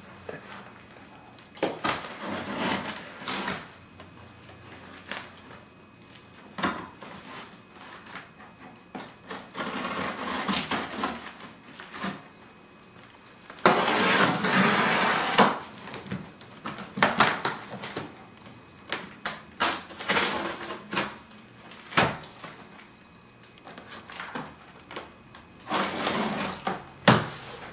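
A utility knife slits packing tape along the seam of a large cardboard box. Irregular bursts of scraping and rustling cardboard come with a few sharp clicks, and the longest, loudest stretch of cutting falls about halfway through.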